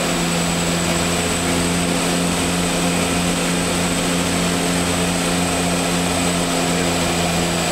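Twin Otter's two turboprop engines and propellers running at a steady drone, heard inside the cockpit: a constant low hum with a thin high whine above it.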